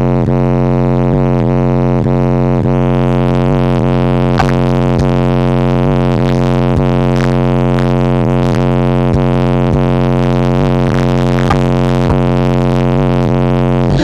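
Car-audio subwoofers doing a loud bass burp: one deep, buzzing tone held steady at high volume, with a few faint clicks along the way.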